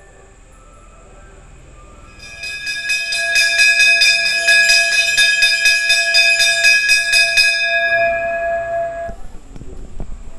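Hanging brass temple bell rung by hand, struck rapidly about four times a second for some five seconds beginning about two seconds in; its ringing then dies away.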